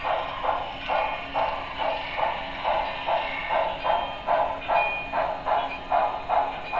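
Broadway Limited Paragon 3 2-10-4 HO steam locomotive's sound decoder playing steady exhaust chuffs, a little over two a second, as the engine works along under power.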